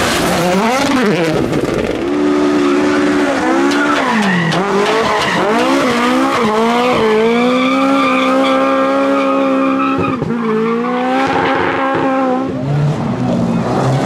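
Rally car engines at full throttle, one car after another, revving hard and changing gear: the pitch climbs, drops at each shift, and holds high for a few seconds at a time, over the hiss of tyres on the stage surface.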